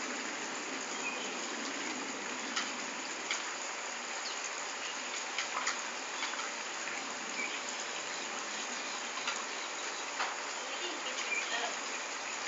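Steady outdoor background noise: an even hiss with scattered faint clicks and a few short chirps.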